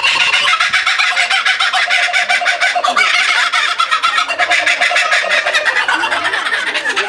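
Laughing kookaburra giving its laughing call: a long, unbroken run of rapid, repeated notes.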